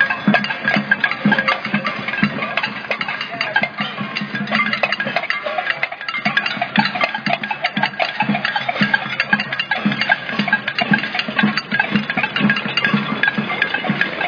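Crowd noise-making with hand percussion: many rapid, uneven strikes on drums, cowbells and other hand-held noisemakers, clattering without a break.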